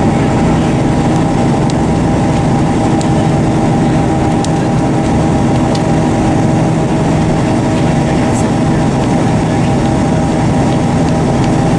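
Cog railway railcar's diesel engine and rack drive running steadily, heard from inside the passenger car, a constant hum with a few faint ticks.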